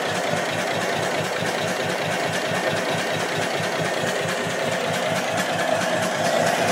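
A 4 hp Mietz & Weiss two-stroke hot-bulb oil engine running steadily, with an even, rapid beat.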